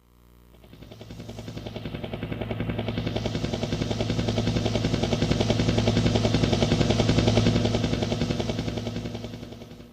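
Karaoke machine's preset helicopter sound effect: a fast, even rotor chop of about five beats a second over a steady low drone, fading in, peaking, then fading away like a helicopter passing overhead.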